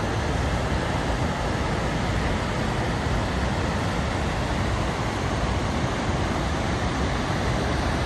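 Gullfoss, a large two-tiered waterfall, with a steady, unbroken rush of falling water, deep and even throughout.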